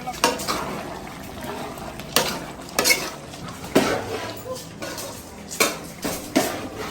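A handful of sharp clinks and knocks of hard objects at irregular intervals, about six in all, each ringing briefly.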